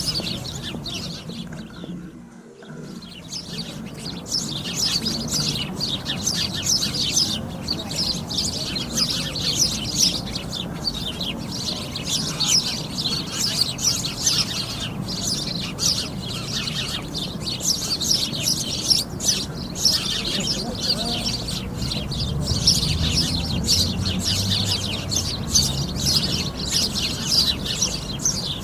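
A flock of sparrows chirping together in a dense, continuous chatter of short, high chirps. The chatter briefly drops away about two seconds in, then resumes.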